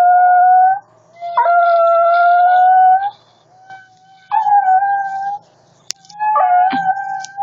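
A shih tzu howling in long, held, wavering notes: four howls of one to two seconds each, the first already under way at the start, with short pauses between.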